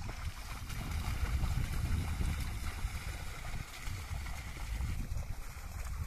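Muddy water sloshing and splashing as a pair of bulls drag a wooden plough through a flooded paddy field, over a low, uneven rumble.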